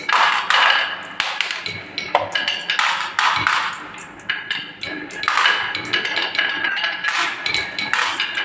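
Marbles rolling and clattering down the wooden slope tracks of a marble run, in repeated rattling rushes every second or two with sharp clicks between.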